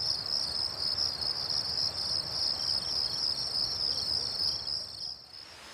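Insects trilling steadily in a high, fast-pulsing chorus over a low rustling hiss. It cuts off suddenly about five seconds in.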